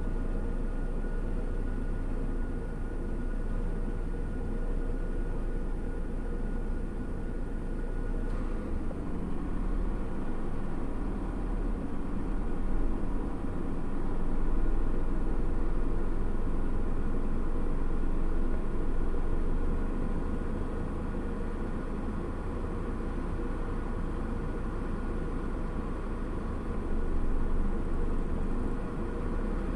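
Vehicle engine idling, heard from inside the cab: a steady low rumble with a faint hum that swells slightly a couple of times.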